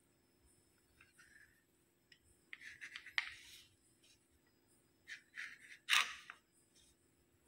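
Kitchen knife sawing through slices of white sandwich bread on a wooden chopping board, cutting off the crusts: short rasping scrapes in two bouts, with a couple of sharp knocks of the blade on the board, the loudest about six seconds in.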